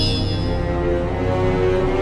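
Intro theme music: held chords over a low rumble, with the ringing tail of a sharp hit fading out in the first half second.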